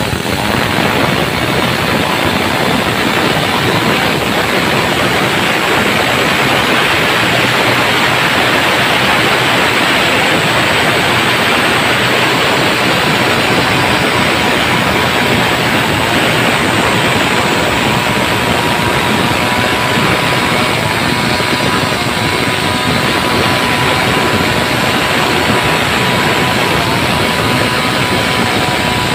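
Stihl chainsaw running steadily at full throttle with its bar buried in a log, the chain ripping lengthwise along the grain to cut planks.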